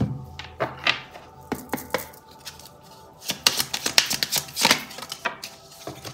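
Tarot cards being shuffled by hand and a card dealt onto a wooden tabletop: a run of quick, irregular card clicks and taps, thickest about three to five seconds in.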